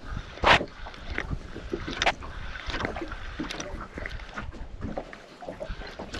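Water slapping against a small boat's hull in the wind, with scattered knocks and thumps on the boat; the loudest comes about half a second in.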